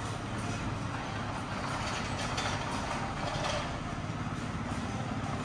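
Street traffic noise with a heavy vehicle's engine running steadily.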